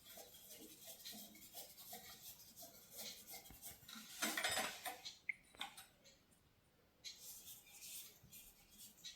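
Small hard parts and tools being handled: light clicking and clinking throughout, a louder scrape about four seconds in, then a sharp click.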